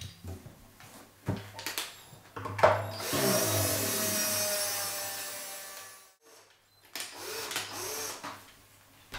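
A small power tool used as a string winder runs for about three seconds, turning a classical guitar's tuning peg to slacken a nylon string, then dies away; a tone inside it slides slowly down. Light clicks and knocks of handling come before it.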